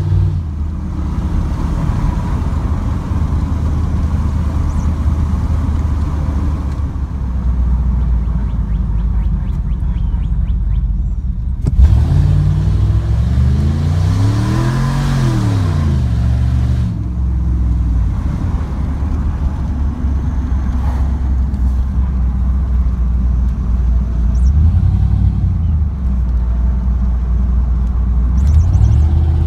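GM pickup truck's engine and drivetrain heard from inside the cab while driving, on a road test of a newly installed transmission and differential. About twelve seconds in there is a sudden thump, then the engine revs up hard, its pitch rising for a couple of seconds before dropping back as the transmission shifts up; it then runs steadily again.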